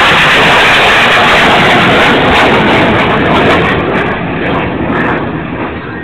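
Blue Angels jet passing low overhead, a very loud rushing jet roar that fades away from about halfway through.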